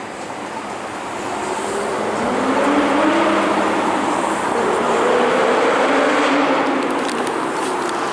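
A car engine revving really loudly, its pitch rising and falling, swelling from about a second in.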